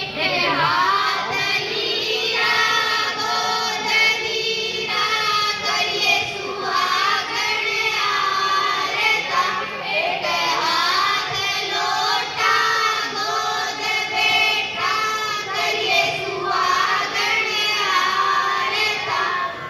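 Several women's voices singing a Haryanvi folk song together, the melody carried in unison with overlapping lines.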